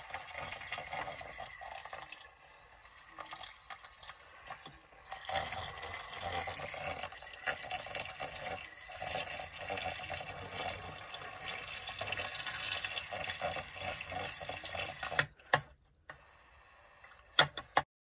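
Mini electric makeup-brush washing machine spinning a brush in hot soapy water: a steady watery swishing and churning that grows louder about five seconds in and cuts off about fifteen seconds in. A few sharp knocks follow near the end.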